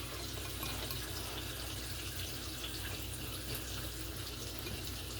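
Bacon frying in a skillet: a steady sizzle with small scattered crackles.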